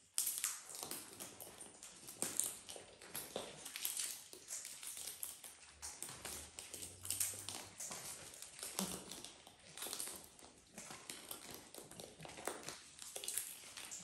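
Macaws and a cockatoo cracking seeds and tapping their beaks against a metal feeding dish: a steady run of irregular small clicks, crunches and rattles.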